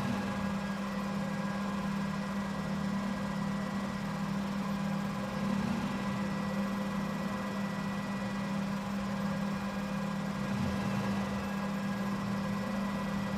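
Steady machine hum, a constant low drone with a few fainter steady tones above it, without a break.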